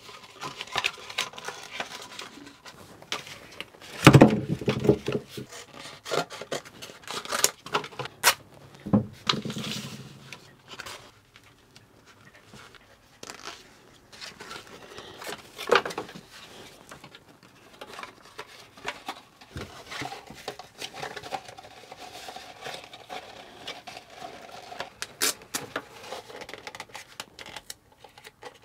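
Hands working cardboard and a plastic vent fitting: irregular rubbing and rustling with scattered clicks and taps, and one louder knock about four seconds in.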